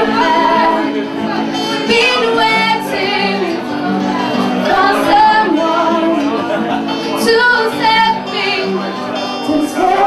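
A woman singing while playing an acoustic guitar, the guitar's sustained chords running under her melody.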